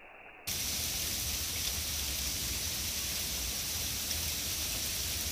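Precipitation of rain mixed with wet snow falling steadily, as an even hiss. It cuts in abruptly about half a second in, after a faint, muffled stretch.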